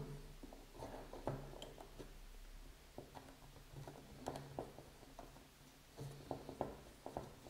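Faint, scattered clicks and light knocks of spray-gun parts being handled and screwed back together by hand.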